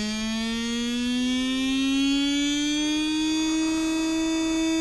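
B&R Signature Series brushed stock RC motor, thought to be a 27-turn, spinning up on a motor dyno. Its whine rises in pitch as the supply voltage is stepped up, then holds steady about three and a half seconds in at full speed.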